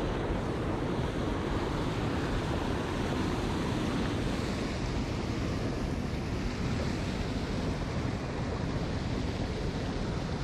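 Steady rushing noise of wind buffeting the microphone, with no separate events standing out.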